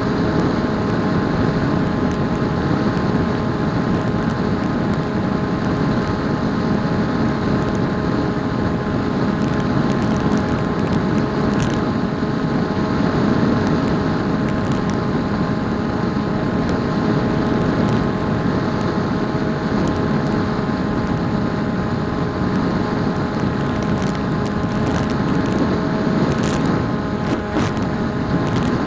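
Electric motor and pusher propeller of a PopWing foam flying wing running steadily in flight, heard from on board, a steady whine of several held tones over a dense rush of wind on the microphone.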